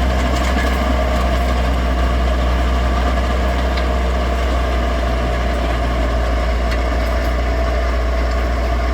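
The engine of a farm machine driving a hiller / ridge-forming implement, running steadily at an even speed with a strong low hum.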